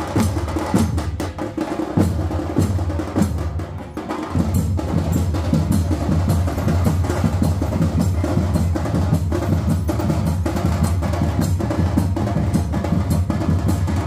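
Loud, dense drumming: a steady deep drum beat under a fast run of sharp, clacking strokes. The drums slacken briefly just before four seconds in, then come back in full and keep going.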